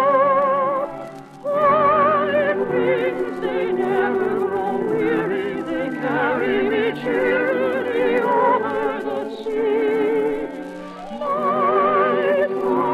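Soprano singing a sea song in operatic style with wide vibrato, over orchestral accompaniment. There are brief breaks in the voice about a second in and again near the end.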